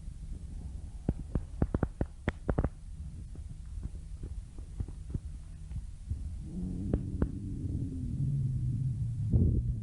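A human stomach growling: a low rumble with a quick run of gurgling pops in the first few seconds, then a drawn-out, wavering low growl that grows louder in the second half.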